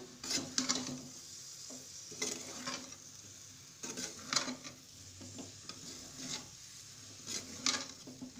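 A metal spatula stirring and scraping through fried moong dal dumplings in a metal kadai, with irregular scrapes and clinks against the pan over a steady quiet sizzle of oil: the dumplings are being tossed with garam masala and coriander leaves at the end of frying.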